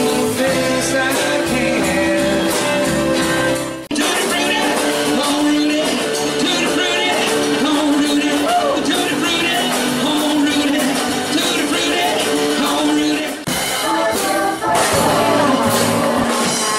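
Small live band playing 1950s-style rock and roll with a singer. The music jumps abruptly to a different passage twice.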